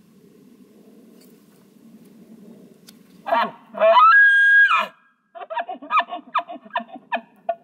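Elk bugle: a rising note that breaks into a long, loud high whistle and falls off, followed by about eight quick chuckles.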